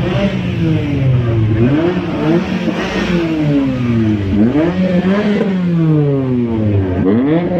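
Car engines with loud aftermarket exhausts being revved again and again, the engine note climbing sharply and falling back about five or six times.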